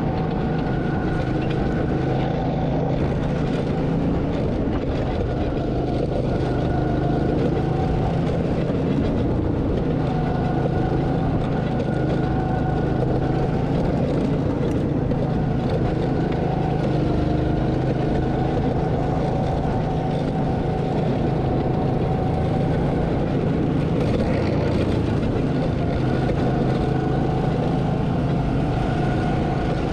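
Go-kart engine heard from the driver's seat, running steadily at speed, its pitch dipping and picking up again every few seconds.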